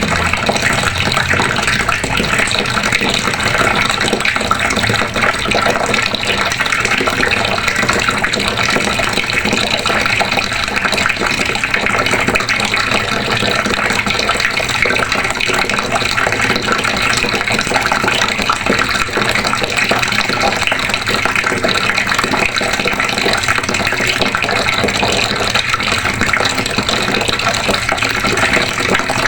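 Water running steadily from a faucet, an unbroken splashing gush.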